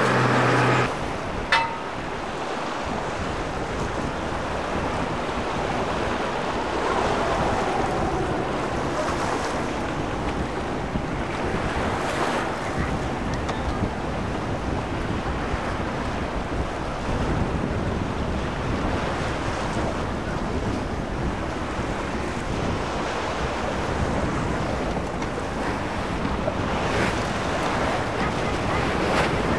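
Choppy inlet water rushing and splashing against a boat's hull and wake, with wind buffeting the microphone. A short sharp click sounds about a second and a half in.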